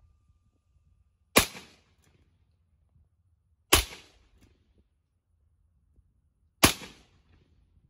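Smith & Wesson Model 327 M&P R8 revolver, chambered in .357 Magnum, fired three times at a slow pace, about two to three seconds apart. Each shot is a sharp crack with a short echo trailing off.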